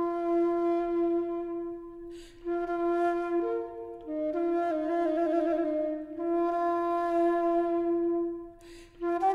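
A one-keyed baroque transverse flute (traverso) in three pieces with ivory mounts, playing a slow solo melody in its low register, mostly long held notes. There is a wavering ornament about five seconds in, and brief breaths between phrases about two seconds in and near the end.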